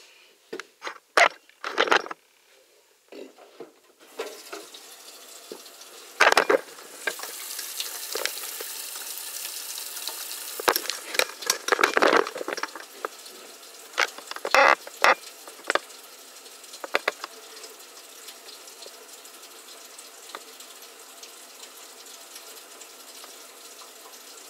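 Tap water running into a kitchen sink and down the drain through a freshly re-puttied basket strainer, a leak test of the repair. A few knocks come first, then the water starts about four seconds in, runs strongest for a few seconds and then goes on steadily, with occasional knocks and clatter.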